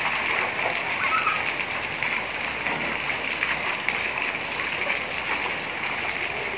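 Heavy rain falling steadily on paved ground and roofs: an even, dense hiss. Feet splash through the standing water on the pavement.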